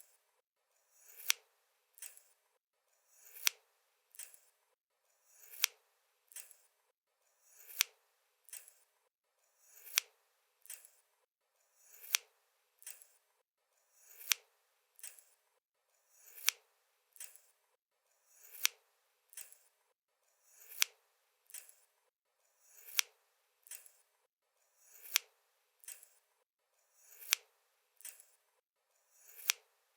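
A pair of scissors snipping at a slow, even pace, with a sharp blade snap about every two seconds. Each snap is followed by a lighter click.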